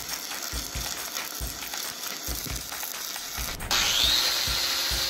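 Stick (SMAW) welding arc crackling and hissing as an electrode lays a stringer bead on a butt-joint cap. About three and a half seconds in, it gives way to a louder angle grinder with a wire wheel, spinning up with a rising whine against the welded steel plate.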